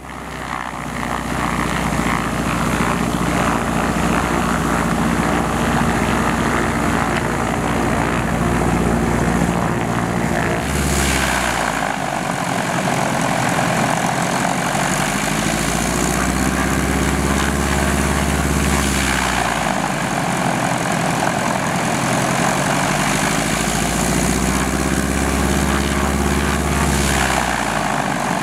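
Bölkow Bo 207's four-cylinder Lycoming piston engine and propeller running while the aircraft warms up before take-off, fading in at the start. From about a third of the way in, the tone slowly dips and rises a few times.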